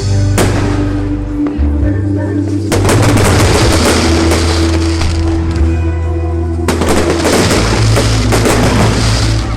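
Fireworks crackling in dense, rapid volleys from about three seconds in to about seven seconds, starting again near the end, over steady music with deep sustained tones.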